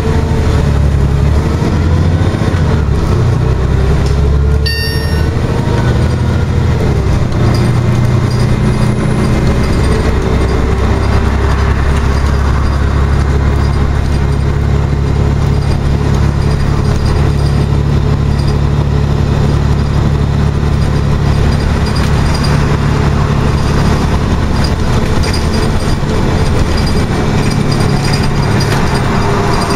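Ride inside a Scania OmniCity articulated bus on the move: steady low engine and drivetrain drone over road noise, with a whine that rises and falls in pitch.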